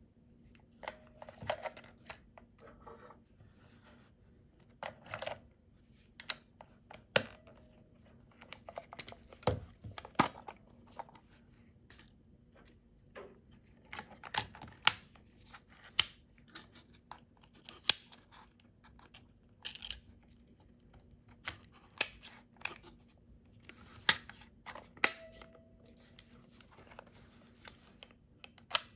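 Olympus Trip AF 50 35mm compact film camera being handled: sharp plastic clicks and snaps from its battery cover and hinged back door opening and shutting, and from a film cartridge being set in its chamber, with light rubbing between them. The clicks come singly, about one every second or two.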